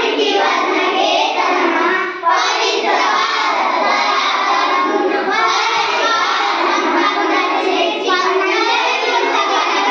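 A group of children singing a Telugu song together in unison, with a short pause about two seconds in.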